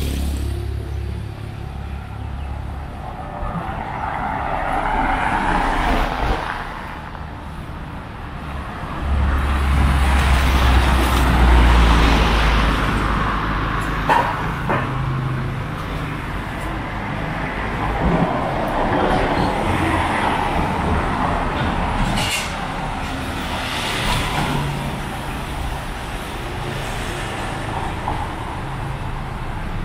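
Road traffic: several vehicles pass one after another, each swelling and fading. The loudest passes about ten seconds in, with a heavy low rumble.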